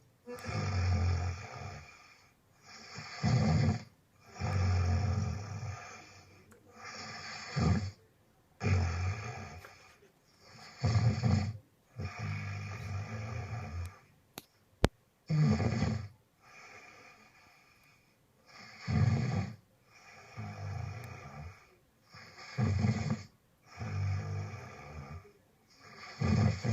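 Snoring in slow, regular breaths, each lasting a second or two with short quiet gaps between. A single sharp click comes about halfway through.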